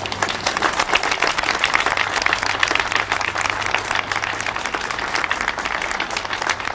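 Audience applauding: dense, many-handed clapping that starts suddenly and carries on steadily.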